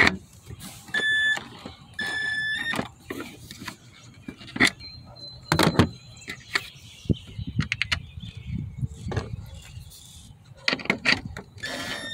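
Craftsman 19.2-volt cordless drill spinning a Torx bit in two short bursts, about one and two seconds in, driving the tail light screws. Another brief burst comes near the end, with clicks and knocks of handling in between.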